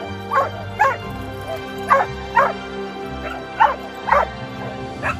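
German Shepherd puppy yapping in short, high barks, about seven of them, mostly in pairs half a second apart, over background music.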